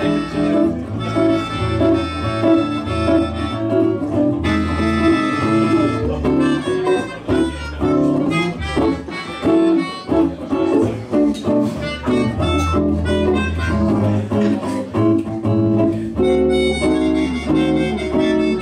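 Live band music: a melodica plays a melody over guitar accompaniment, with a steady low bass line underneath.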